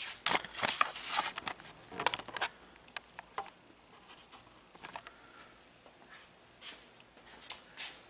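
Handling noise: irregular light clicks and scrapes of small hard parts, close together for the first three seconds or so, then only a few scattered ticks.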